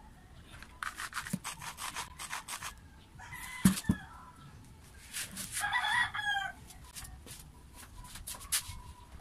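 Sharp clicks and knocks from handling and fitting parts of a Bosch angle grinder's housing, loudest as a single knock a little under four seconds in. A chicken calls twice in the background, about three and six seconds in.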